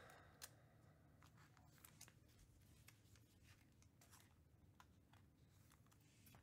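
Near silence: room tone with faint, scattered light clicks, a slightly stronger one about half a second in.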